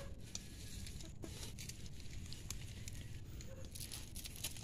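Faint crackling and rustling of a hand pulling apart loose soil and fine fibrous roots, with a few small scattered clicks.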